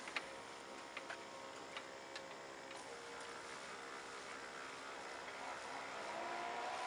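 Bald-faced hornets buzzing around their nest while a pump sprayer hisses, spraying onto the nest, with a few sharp clicks in the first couple of seconds. The spray hiss grows louder near the end.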